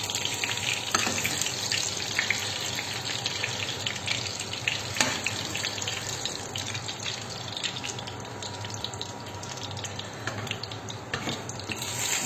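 Eggplant cubes frying in hot oil in a pan: a steady sizzle full of small crackles, with a couple of sharper clicks about a second in and near the middle.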